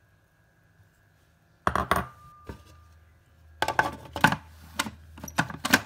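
A small glass bowl clinks down with a short ring, then the plastic lid of a food processor bowl clatters and knocks as it is fitted and locked into place.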